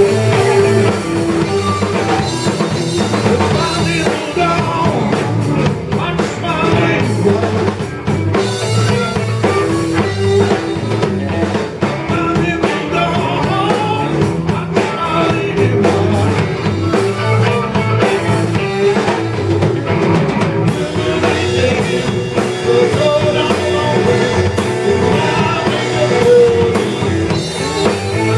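Live blues band playing: a drum kit keeping time under two electric guitars, with a man singing.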